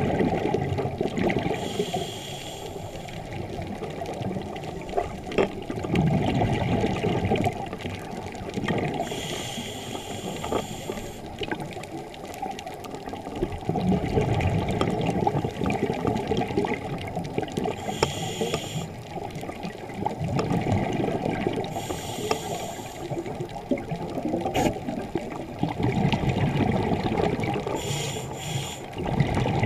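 Scuba regulator breathing underwater: slow, repeated breaths, each a short hissing inhale through the regulator followed by the low bubbling gurgle of exhaled air.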